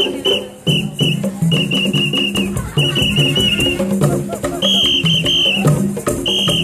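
Upbeat drum music with rattles, cut through by a whistle blown in quick runs of short, shrill blasts.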